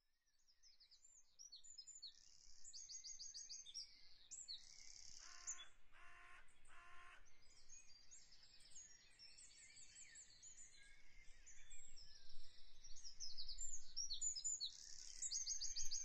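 Faint birdsong: small birds chirping in quick, high trills throughout, with a lower call repeated three times in a row around the middle.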